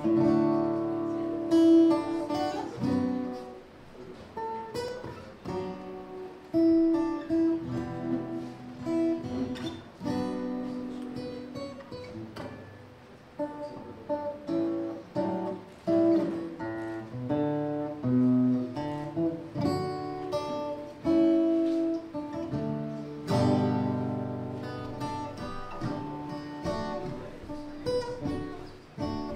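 Solo steel-string acoustic guitar played as an instrumental: chords struck and left to ring, with single-note melody picked between them.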